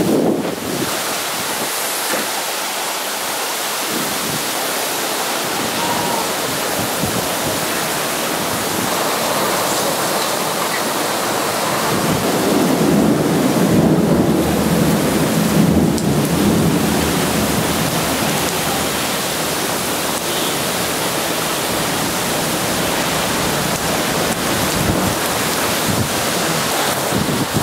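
Heavy downpour in a thunderstorm: a dense, steady hiss of rain, with a deeper rumble swelling for a few seconds around the middle.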